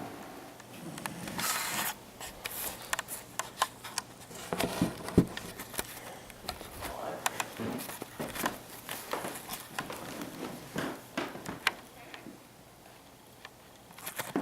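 Rustling and handling noise with scattered clicks, and one sharp thump about five seconds in.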